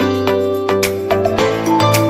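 Instrumental background music: sustained pitched notes over a steady bass, with a sharp percussive accent about every half second.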